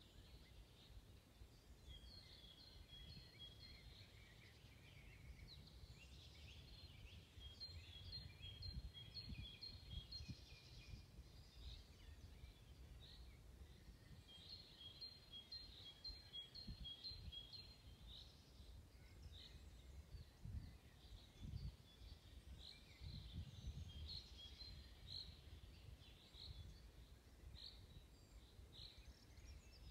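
Faint birdsong: songbirds repeating short high notes in phrases, over a low, uneven rumble.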